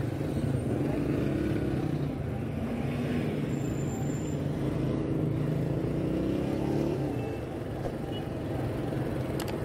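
Road traffic: car and minivan engines running and passing close by, one engine's pitch rising about five to seven seconds in.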